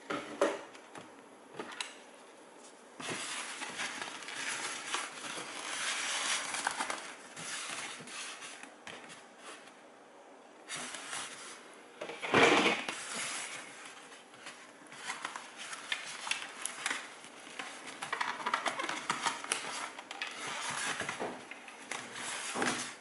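Hands and a goggle strap rubbing and scraping against a polystyrene foam mannequin head as FPV goggles are fitted onto it, in irregular bouts of rustling with one louder scrape about twelve seconds in.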